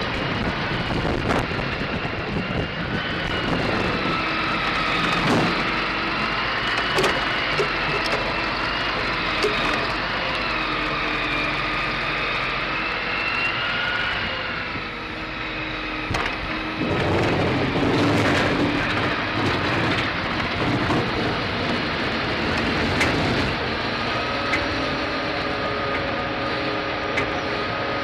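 Heavy forestry log-processing machine running: a diesel engine and its hydraulics drone steadily, the note rising and falling, with scattered knocks. A louder, rougher stretch of several seconds comes a little past the middle.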